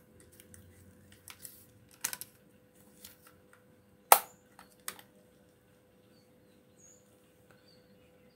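Handling clicks and knocks of a spring airsoft Tec-9-style SMG, plastic and metal parts clicking as it is worked, with one loud sharp click about four seconds in. The clicks stop after about five seconds, leaving faint bird chirps.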